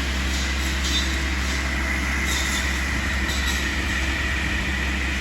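Tree-trimming skidder running steadily at a distance: a continuous mechanical drone with a steady high whine over it.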